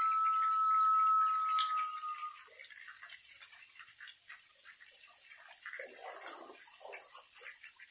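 Stone turtle whistle holding one long, steady high note that tapers off and stops about two seconds in. Near the end, feet splash through shallow stream water.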